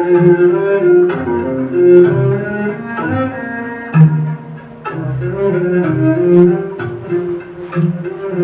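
Instrumental music: low sustained notes with a moving melody above them, and sharp percussive strikes about once a second.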